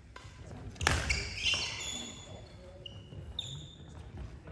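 Court shoes squeaking on a wooden sports-hall floor in short, high squeaks, after a single sharp smack about a second in.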